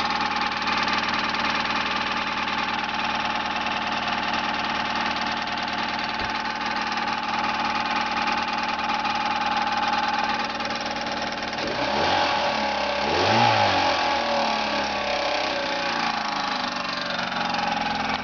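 Car engine idling steadily, then revved up briefly twice about twelve and thirteen and a half seconds in before dropping back to idle. The owner suspects something is wrong with the motor but cannot tell what.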